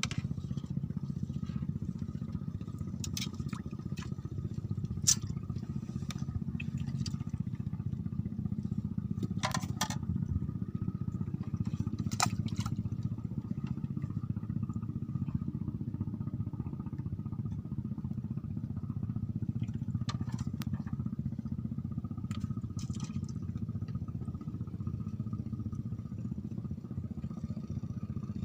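A small engine running steadily at an even speed, with a few short clicks and knocks over it.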